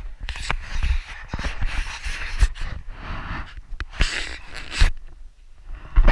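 Handling noise on a GoPro Hero 4 as it is carried and turned by hand: rubbing and rustling against the camera body, scattered knocks, and one loud thump about six seconds in.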